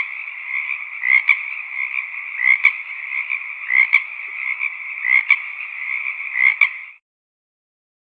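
Frogs croaking: louder calls repeat about every second and a quarter over steady background calling. The sound cuts off suddenly about seven seconds in.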